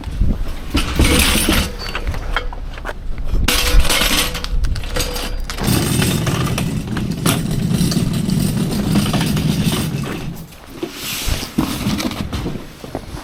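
Metal clattering and rattling as a folding hand truck is pulled out and set up, then a rough, continuous rattle of its small wheels rolling for about four seconds past the middle.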